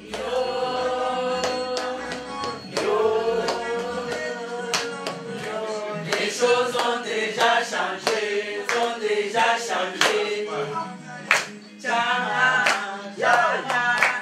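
A group of people singing together, with hand clapping over the song.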